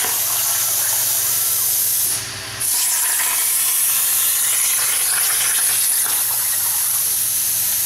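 Hypertherm plasma cutter torch on a CNC table cutting steel plate: a loud, steady hiss of the plasma arc. About two seconds in the hiss drops away for half a second, then comes back.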